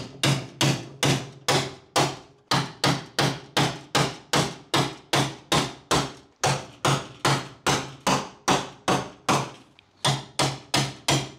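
Hammer driving a chisel into sheet steel, striking at a steady pace of about three blows a second, each with a short metallic ring, with one brief pause near the end. The blows are breaking the spot welds that hold the rusted inner fender of a 1967 Dodge Dart to the body.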